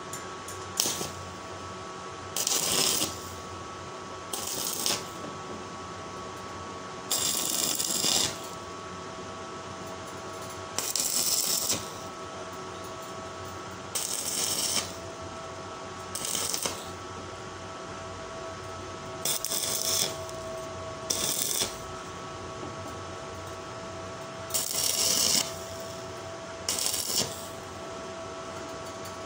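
Stick (arc) welder crackling and hissing in a series of about eleven short welds, each lasting roughly half a second to a second, as steel strips of a hexagonal paving-block mould are tacked together. A steady hum runs underneath.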